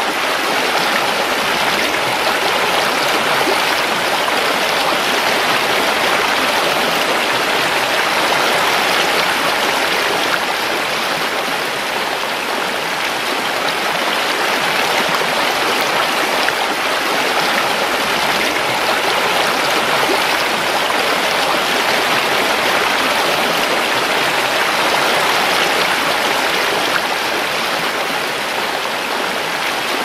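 Shallow rocky stream rushing and splashing over stones in a steady, even wash of water noise.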